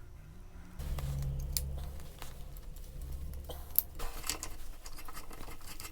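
Small metallic clicks and scrapes of brake pads and caliper parts being handled and fitted back into a Brembo motorcycle brake caliper, with one sharper click partway through. A low hum runs for a second or two near the start.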